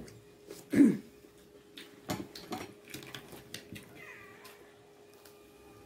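An animal's call, loud and pitched, about a second in, with fainter calls around four seconds in and short clinks of dishes and cutlery in between.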